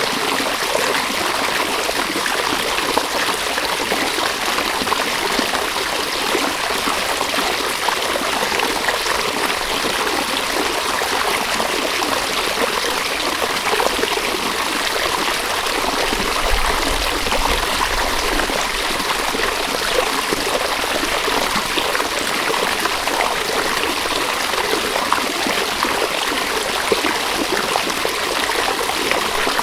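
A river running over stones, a steady rushing and trickling of water. A faint low rumble comes in briefly about halfway through.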